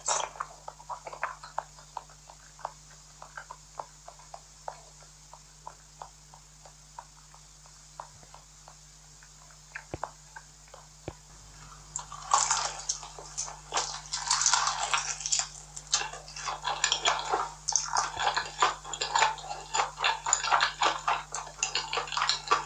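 Close-miked eating sounds: scattered wet mouth clicks while chewing, then about twelve seconds in, dense continuous crunching.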